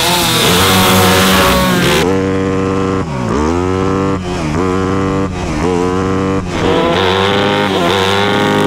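Shifter kart engine at full throttle accelerating from a standing start. Its pitch climbs steeply and drops sharply at each upshift, four shifts a little over a second apart.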